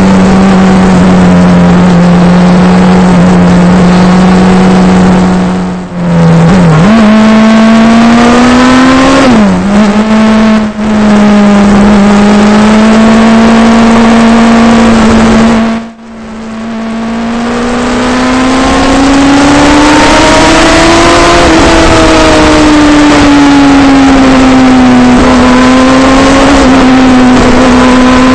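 Suzuki GSX-R sportbike's inline-four engine under way at steady revs, heard loud from the bike itself with road and wind noise. The revs drop and jump with gear changes around 6 and 10 seconds in, the throttle shuts off briefly midway and then opens again, and the engine note rises and falls gently near the end.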